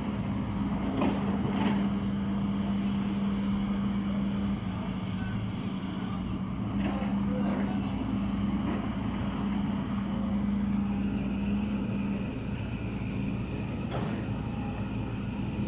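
Backhoe loader's diesel engine running steadily with a low hum, easing off briefly twice, with a few scattered knocks from the machine at work.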